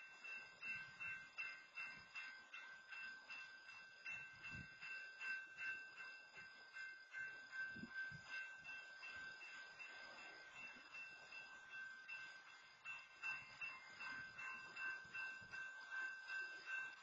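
Railroad grade-crossing warning bell ringing in steady repeated strokes, a few a second, faint. It keeps sounding because the crossing arms are held down by a stopped freight train.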